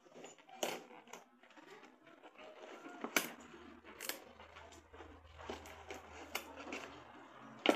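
Packaging of a boxed toy microscope being handled and unwrapped: low rustling broken by scattered sharp clicks and knocks, the loudest a little after three seconds, around four seconds and near the end.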